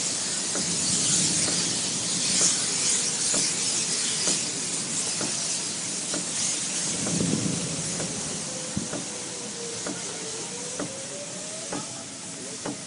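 Steady rushing hiss of storm wind and rain, heard from inside a vehicle, with scattered small ticks and knocks. A faint drawn-out wavering tone rises and falls in the second half.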